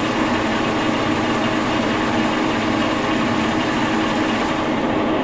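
Brown & Sharpe No. 2 milling machine running under a cut in steel: a steady machine hum with a dense hiss over it. The highest part of the hiss eases off about four and a half seconds in.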